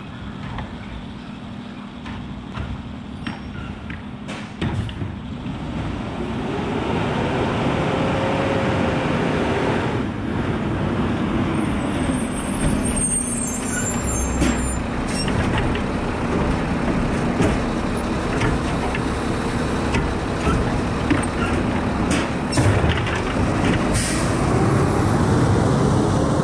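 Mack automated side-loader garbage truck: its diesel engine grows louder as it approaches, air brakes hiss as it stops, and a bin is emptied with knocks and clatter before the engine picks up again as the truck pulls away.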